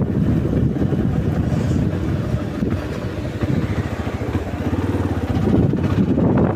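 Yamaha Lander 250's single-cylinder four-stroke engine running at low speed as the motorcycle rolls slowly, a low even throb that grows a little louder near the end.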